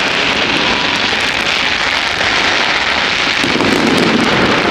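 Fireworks crackling densely and continuously: a steady, rain-like hail of small pops from crackling effects.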